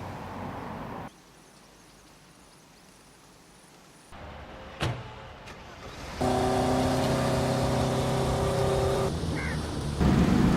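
Film soundtrack excerpts: a motor vehicle's engine running steadily for about four seconds after a quiet stretch with a sharp click. Near the end a siren starts to rise.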